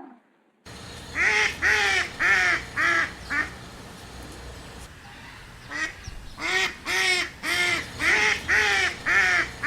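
A duck quacking in two runs of quick, nasal quacks, about three a second, with a pause of a couple of seconds between the runs.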